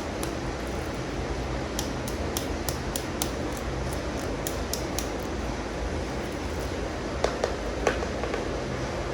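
Hard plastic animal toy figures being handled, giving light scattered clicks and taps, with a few louder clicks near the end, over a steady background hiss.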